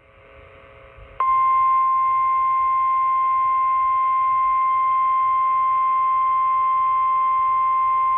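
NOAA Weather Radio 1050 Hz warning alarm tone: after about a second of faint radio hiss, a single loud steady tone starts abruptly and holds unbroken. It is the alert signal that comes before a warning broadcast, here a flash flood warning.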